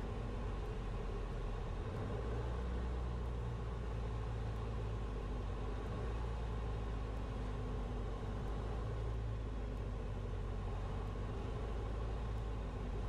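Light aircraft's piston engine running steadily on final approach to landing, under a steady rush of air.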